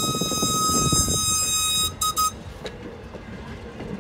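Train whistle sounding one long steady blast that cuts off about two seconds in, followed by two very brief toots, over the rumble of passenger coaches rolling over a grade crossing.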